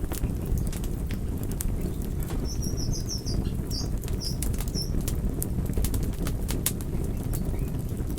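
Wood fire burning in a fireplace: a steady low rumble of the flames with frequent sharp crackles and pops. A short run of faint high squeaks comes a few seconds in.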